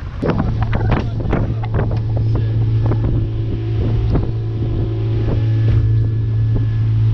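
Small boat's outboard motor running at a steady low hum, with a quick series of knocks on the wooden hull and deck in the first two seconds that tails off, and a few more knocks later.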